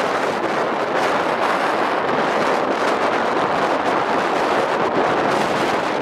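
Christy 7186 FC hovercraft, with its 160 hp thrust engine and 26 hp lift engine, running at speed as a steady, noisy drone, mixed with strong gusty wind buffeting the microphone.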